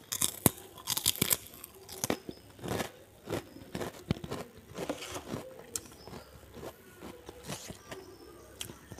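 A white kerupuk cracker bitten off with loud, sharp crunches in the first second or so, then crunched and chewed, the mouth close to a clip-on microphone.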